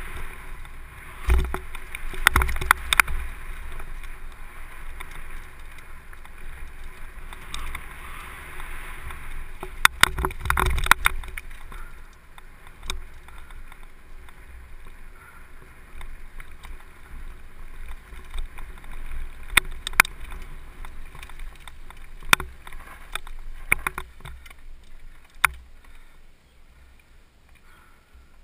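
Downhill mountain bike running fast down a dirt trail, heard from the rider's helmet: steady rush of wind and tyre noise with the bike clattering over bumps, clusters of sharp knocks in the first few seconds and again about ten seconds in. It grows quieter in the second half as the bike slows.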